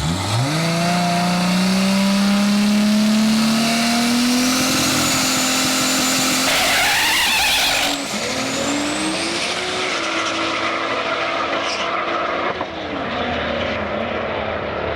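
Drag race car launching hard and accelerating away down the strip, its engine note rising steadily. About eight seconds in the sound dips, then a fresh rising note follows as it pulls away.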